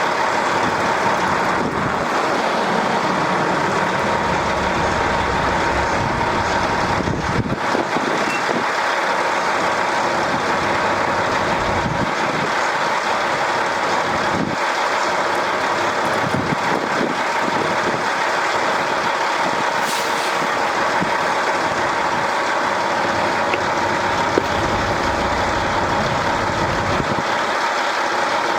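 Steady mechanical drone with a constant hum, with a few faint knocks now and then.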